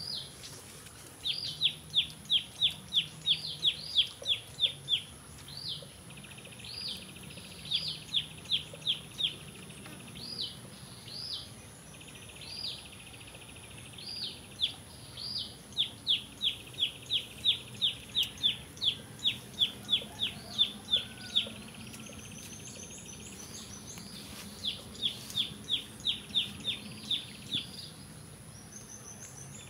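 A bird calling: bouts of quick, downward-sliding chirps, about four a second, broken by short pauses and single notes.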